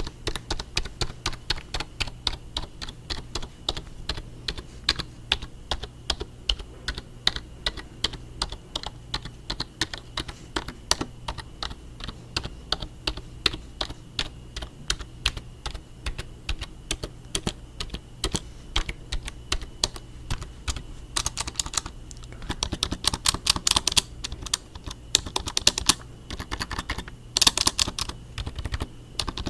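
Fast typing on a small handheld keyboard: a quick, continuous run of key clicks, with louder, denser flurries of keystrokes in the last third.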